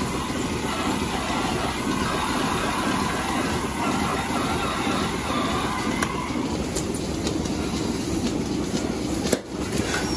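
Steady mechanical rumble and hiss of milking-parlour equipment running, with metal clicks and clanks as milking clusters are handled and one sharp knock about nine seconds in.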